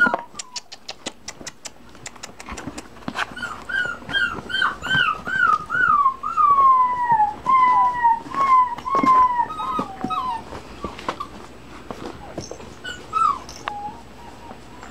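Puppies whimpering and whining: a long string of short, high-pitched cries in quick succession, many falling in pitch, through the middle, with a few more near the end.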